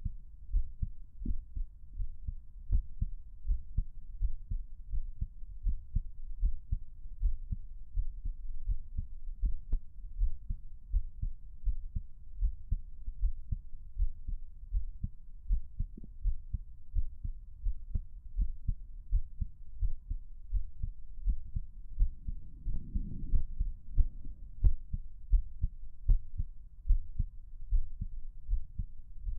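A man's heartbeat, recorded up close: a steady rhythm of soft, low thuds. There is a brief patch of louder low noise about two-thirds of the way through.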